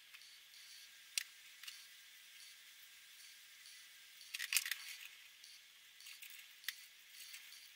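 Faint clicks and taps of Promarker alcohol markers being handled and dabbed onto paper: a sharp click about a second in, a quick cluster of clicks around the middle, and another click later.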